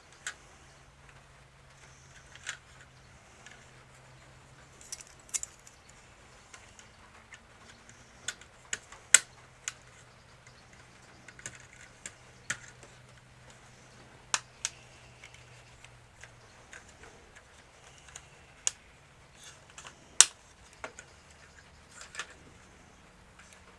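Irregular sharp clicks and taps of small hard-plastic toy parts being handled and fitted together, as the rotor assembly of a vintage toy helicopter is put back in place and tried.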